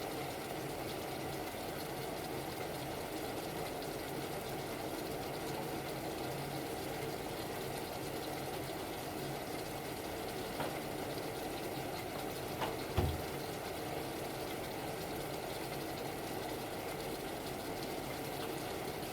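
Steady low mechanical hum, with a short knock about two-thirds of the way through.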